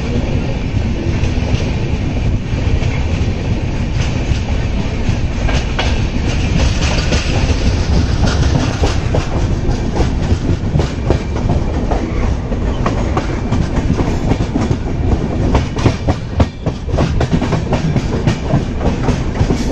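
Express passenger train running on the track: a steady rumble of the coaches with repeated clicks of the wheels over rail joints, the clicks coming thicker in the second half.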